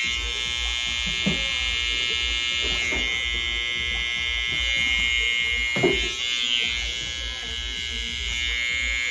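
StyleCraft Rebel cordless hair clipper running with a steady high buzz as it cuts along the nape hairline. Two short knocks break in, a faint one about a second in and a louder one about six seconds in.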